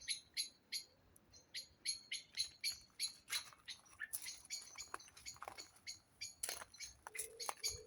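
Common blackbirds giving rapid, repeated sharp alarm calls, a few a second. They are the calls of birds agitated by someone near their young.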